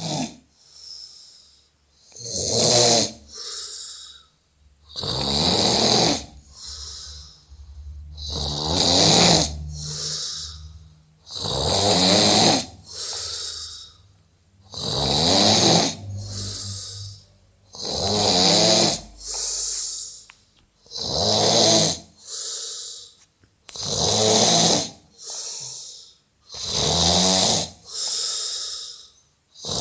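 Loud snoring in a steady rhythm: a long snore about every three seconds, each followed by a shorter, softer breath.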